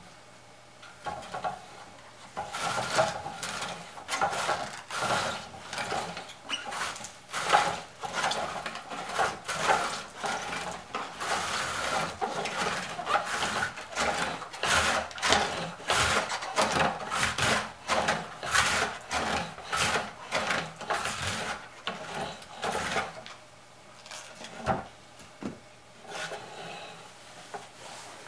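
Green cabbage being shredded on a wooden mandoline cabbage slicer with stainless-steel blades: the wooden carriage slides back and forth, each stroke a rasping cut, about two a second. The strokes stop a few seconds before the end, leaving a few lighter knocks.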